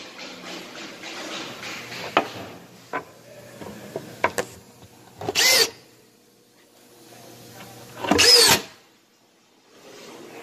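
Power drill driving screws into wood in two short bursts, the motor's whine rising in pitch and falling back each time; the second burst, about three seconds after the first, is the louder. A few sharp knocks and taps come before them.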